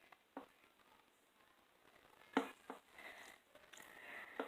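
Homemade glue-and-detergent slime being mixed by hand: faint sticky squishing, with a few sharp clicks.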